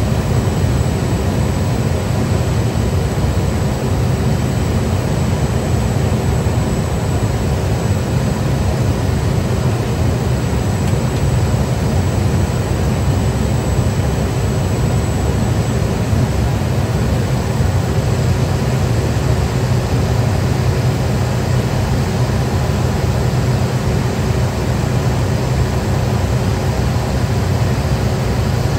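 Cessna Caravan's single Pratt & Whitney PT6A turboprop engine running at steady power, heard inside the cabin: an even low hum with faint constant whining tones above it.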